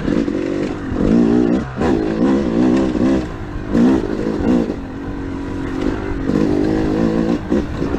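2013 Yamaha YZ250 two-stroke dirt bike engine being ridden, its pitch rising and falling in several throttle surges, with a brief drop about a second and a half in.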